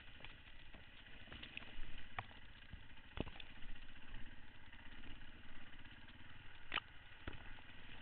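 Beta 525 RS dirt bike's single-cylinder four-stroke engine running steadily at low revs, with a few sharp ticks and knocks as brush and branches strike the bike and camera.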